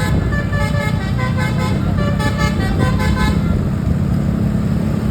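Bus 'telolet basuri' multi-tone musical horn playing a quick tune of short stepped notes. The tune stops about three seconds in, leaving the steady low running of the bus engine.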